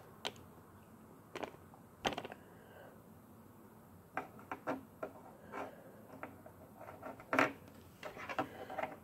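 Plastic Lego bricks clicking and knocking as hinged parts of a small brick-built model are folded and pressed into place: a series of sharp, irregular clicks, the loudest about seven seconds in.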